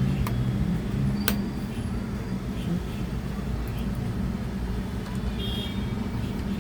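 Steady low engine-like rumble with a sharp click about a second in.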